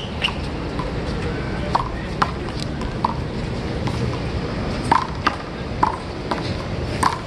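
One-wall handball rally: a small rubber handball smacked by open hands and rebounding off the concrete wall and court, a string of sharp smacks at uneven intervals, the loudest about five seconds in and near the end, over a steady outdoor background hum.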